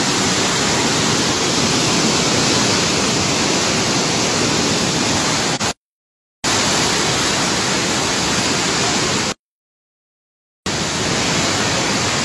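Torrent of muddy floodwater rushing through a narrow walled channel, a loud steady noise of churning water. The sound cuts out completely twice: briefly a little before the middle, and for over a second in the second half.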